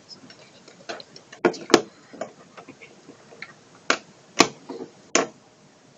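About seven sharp clicks and taps at uneven spacing, from small objects being handled close to the microphone.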